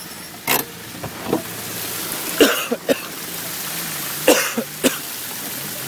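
Land Rover Defender 110 wading through deep water: a steady rush of water with a faint low engine hum, broken by several short, sharp knocks or splashes.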